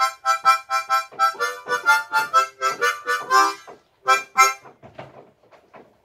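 Harmonica playing the closing phrase of a tune: a quick run of short notes at about four a second, then two separate final notes about four seconds in. After that only a few faint soft sounds remain.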